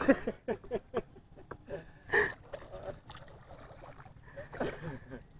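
A hooked hampala thrashing at the surface beside a small wooden boat, with a few short splashes. The loudest splash comes about two seconds in and another follows near the end.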